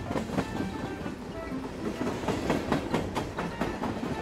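Train running with its wheels clicking over the track joints, a steady rumble with a quick run of clicks in the second half.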